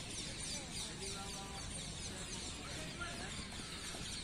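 Outdoor background around a practice ground: faint distant voices and many short high chirps over a steady low rumble.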